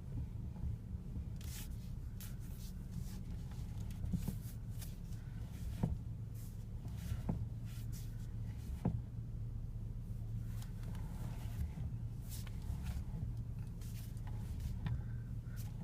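BMW E60 clunking as the steering wheel is turned: a series of sharp knocks, about one every second and a half in the middle of the stretch, over a steady low hum. The owner does not know the cause.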